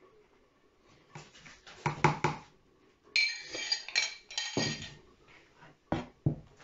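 A metal spoon knocking and scraping against a large plastic mixing bowl, then the bowl dragged across the table with a squeaky scrape, and two short sharp knocks near the end.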